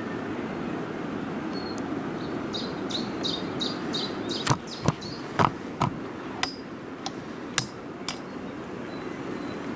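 Outdoor ambience with a steady low hum, a quick run of high chirps repeating about four times a second, then a string of sharp, irregular knocks.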